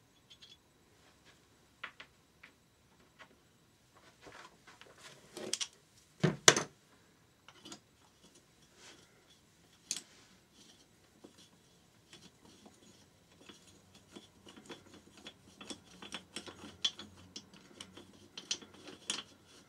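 Hand tools undoing the cylinder-barrel nuts on a Yamaha XT600 engine: scattered metal clicks and clinks, one loud knock about six seconds in, then a fast run of socket-ratchet clicking in the second half.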